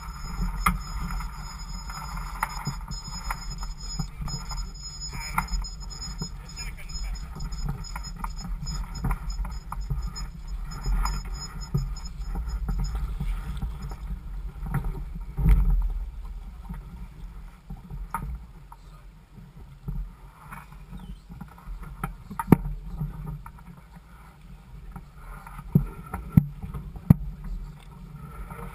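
Low rumbling and frequent knocks from a Laser 4000 sailing dinghy's hull and fittings as it is moved down the beach into shallow water, with a few sharper knocks near the end. Voices can be heard in the background.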